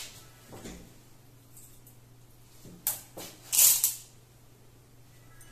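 Handling noise from fabric being pinned by hand: a few soft rustles, a sharp click about three seconds in, then a louder brief rustle just after.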